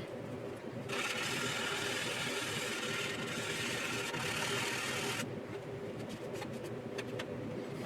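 800-grit sanding stick rubbing over the plastic of a scale model aircraft: a steady scratchy hiss for about four seconds, then a few light clicks as the stick is lifted and moved. A steady low hum sits under it.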